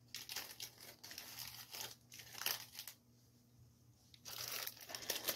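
Crinkling and rustling of paper Easter grass and wrapped items being pushed into a basket, in irregular bursts, a short pause about three seconds in, then steadier rustling near the end.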